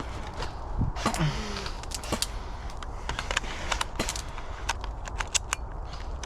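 Irregular sharp clicks and rattles of an airsoft gun being handled, as when reloading a magazine into a BOLT MP5K AEG, with a brief faint voice about a second in.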